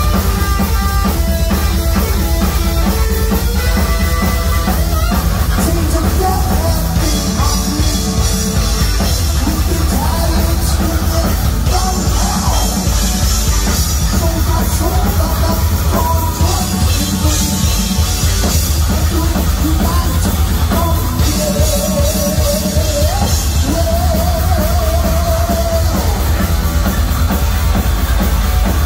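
Heavy metal trio playing live at full volume: distorted electric guitar, bass and a driving drum kit, with a lead line weaving over the top and a long wavering held note later on.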